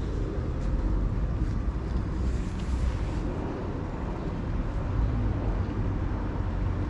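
Steady low outdoor rumble, uneven and strongest in the bass, with a few faint ticks scattered through it.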